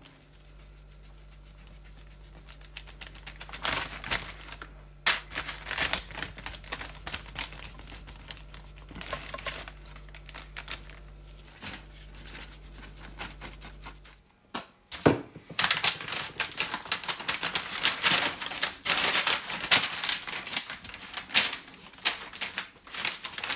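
Butcher paper crinkling and rustling, with a dense run of small clicks, as a raw brisket is trimmed and handled on it. A steady low hum stops about fourteen seconds in.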